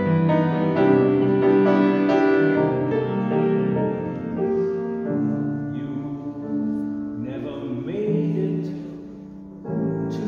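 Grand piano playing a jazzy piece in sustained chords. It is full and strong at first, then softer and sparser, dying down before a fresh chord is struck near the end.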